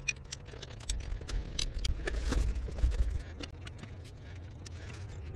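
Clicks, knocks and rattles of a compact fabric-topped folding camp table as its legs are spread and it is set up. Wind rumbles on the microphone between about one and three seconds in.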